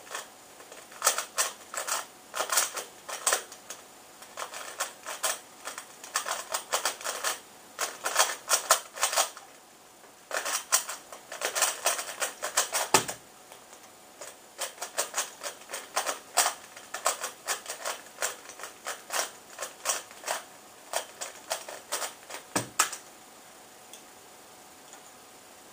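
3x3 speed cube being turned fast in a speedsolve: quick bursts of plastic clicking and clacking from the layers, broken by short pauses. There is a lower knock about halfway through, another a few seconds before the end, and then the clicking stops.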